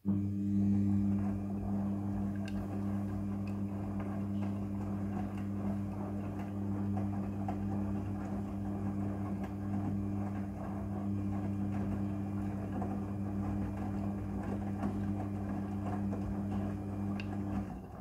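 Front-loading washing machine in its wash tumble: the drum motor hums steadily as the drum turns and the wet clothes tumble and slosh inside. It starts suddenly and stops shortly before the end.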